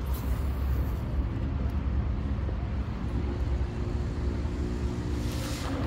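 Steady low outdoor rumble at the seaside, with a faint hum joining in about halfway through and a short hiss near the end.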